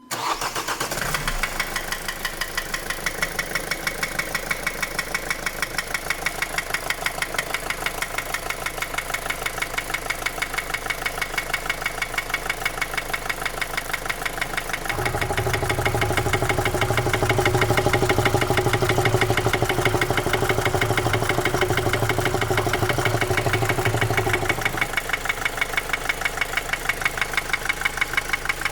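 2010 Opel Astra J 1.7 CDTI 125 hp diesel engine running with a steady, rapid knocking. The bearings have been checked and the injectors replaced without curing it, and the trouble began after a clogged oil pickup strainer in the sump. For about ten seconds past the middle the sound is louder and deeper, with a strong low hum.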